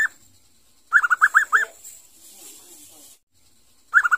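Juvenile zebra dove (perkutut), still learning its song, singing two bursts of five or six quick rising-and-falling notes: one about a second in and one near the end.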